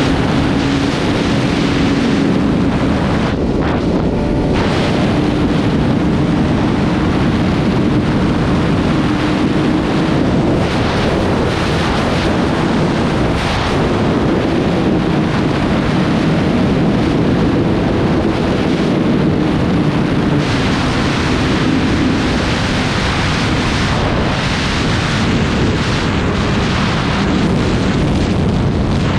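Heavy wind rushing over the microphone on a moving Yamaha R6 sport bike, with the bike's inline-four engine running underneath at a steady, slightly wandering pitch.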